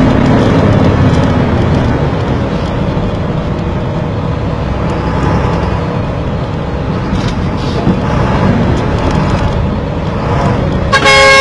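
Steady engine and road noise of riding through heavy traffic beside trucks. Near the end a vehicle horn sounds a short, loud blast.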